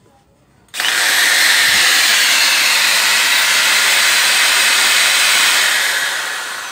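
Corded electric impact drill switched on about a second in and running at full speed with no load; near the end the motor slows with a falling whine. It runs properly again after its slipping gear was repaired with brass brazing.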